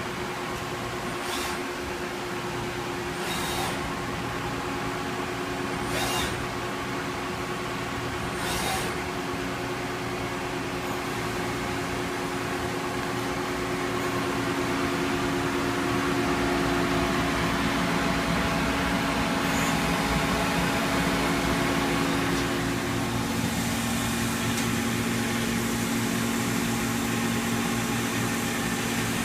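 Citizen A32 VII CNC Swiss-type lathe running with a steady machine hum. A few sharp clicks come in the first nine seconds, then a louder rushing hiss builds from about eleven seconds in.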